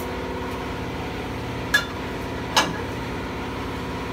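Two sharp metallic clinks under a second apart as a brake rotor and its centring adapters are fitted onto a brake lathe's arbor, over a steady machine hum.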